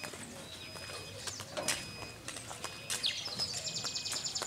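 Songbirds singing: short high chirps and a rapid trilled phrase, the longest trill about three seconds in.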